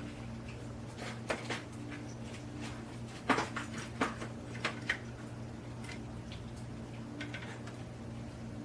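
A steady low electrical hum with a scattered handful of light clicks and taps, from small tools and parts being handled.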